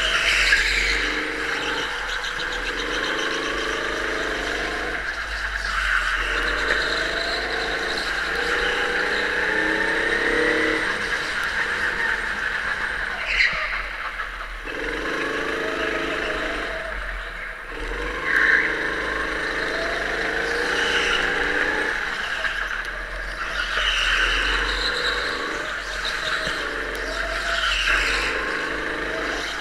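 Rental go-kart's small engine running hard around a tight indoor track. The engine note climbs on each short straight and drops away into each corner, several times over. Tyres squeal through the turns, with a few sharper squeals.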